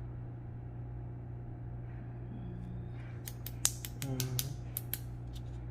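A quick run of about a dozen small sharp clicks and taps from a syringe and medication vial being handled while the mixed medication is drawn up, over a steady low hum.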